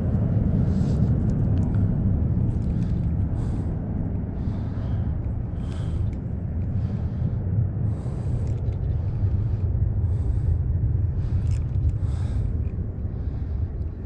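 Steady low rumble, with short, high hissy rustles every second or so.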